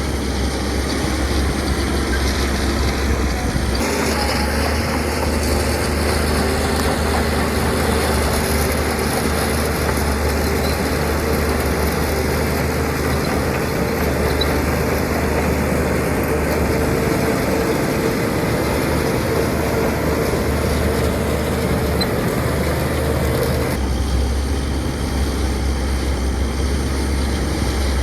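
Heavy diesel earthmoving machinery running steadily: the engines of a bulldozer and dump trucks at work. The sound changes abruptly about four seconds in and again near the end.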